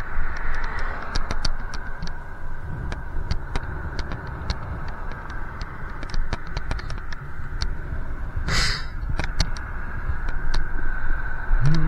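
Riding noise from a bicycle: a steady low rumble of wind and road, with frequent small clicks and rattles and a short hiss about two-thirds of the way through.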